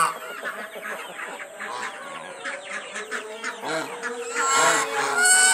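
Backyard flock of chickens and domestic geese calling: a busy run of short clucks, with louder calls at the very start and again about four and a half seconds in.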